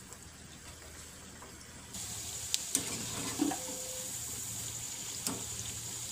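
Diamond-cut pieces of dough deep-frying in hot oil in a kadai: a steady sizzle that starts suddenly about two seconds in. A wire skimmer clinks against the pan a few times.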